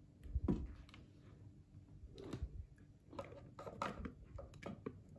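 A silicone spatula scraping thick strawberry ice cream mixture out of a glass blender pitcher into a plastic container: faint, irregular scrapes and soft wet plops, with a few light knocks, the clearest about half a second in and a cluster around three to four seconds.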